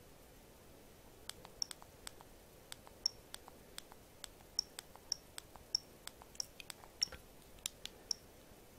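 Faint button clicks on a cheap 1080P action camera as its date and time setting is stepped through, about twenty presses at an irregular two or three a second; many are followed by the camera's short, high key beep.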